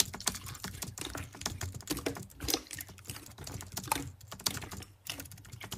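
Clear slime with pearl beads being pressed and stretched by hand, giving dense, irregular sticky clicks and pops.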